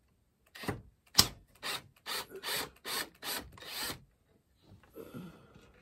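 Cordless drill-driver backing out screws from a treadmill console, run in about eight short pulses between roughly half a second and four seconds in.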